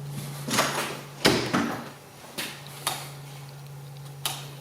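A door being opened and shut: a handful of knocks and clicks, the loudest about a second in, over a steady low hum.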